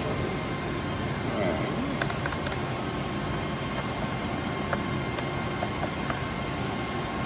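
Steady machinery hum from a CNC boring mill under power, with a few light clicks as keys are pressed on its FANUC Series 18-T control panel.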